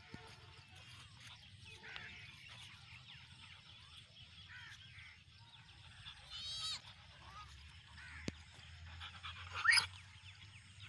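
Two dogs play-fighting, giving high-pitched yelps: a short one about six seconds in and the loudest, rising one near the end.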